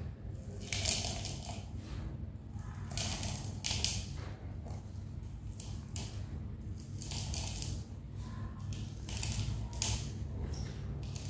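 Dry brown sand scooped by hand and poured into and around a plastic cup: rough, rustling pours in repeated handfuls, roughly one a second. A steady low hum runs underneath.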